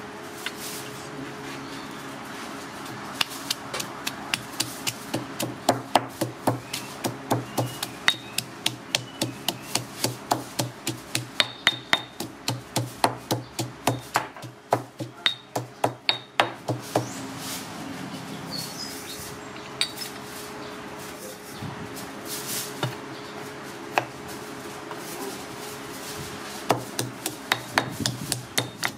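Stone pestle pounding chilies, garlic and seeds in a stone mortar to make a curry paste: sharp knocks about two a second, with a lull of several seconds in the middle before steady pounding resumes near the end.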